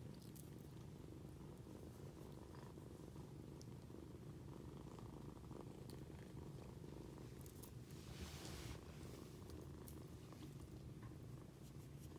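Tabby kitten purring softly and steadily, close up, while being stroked. A brief rustle comes about 8 seconds in.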